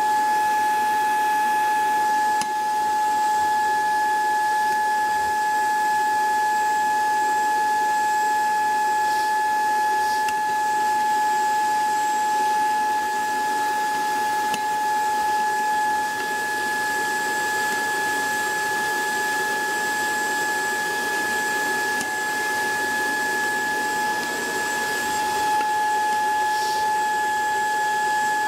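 Dyson vacuum cleaner running steadily: a loud, constant whine over a rushing hiss.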